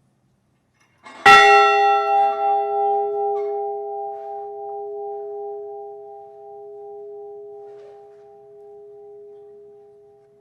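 A memorial bell struck once, tolled for one lost crewman after his name is read. A single sharp strike about a second in, then a ringing tone that fades slowly.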